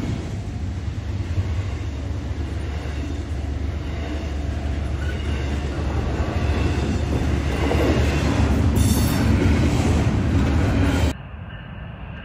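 Double-stack intermodal freight cars rolling past, a steady rumble of wheels on rail that grows louder, with a brief high-pitched wheel squeal about nine seconds in. Near the end it cuts abruptly to a quieter, more distant train rumble.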